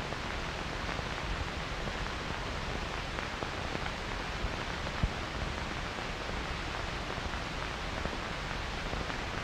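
Steady hiss of an old film soundtrack with nothing else on it, and one short click about halfway through.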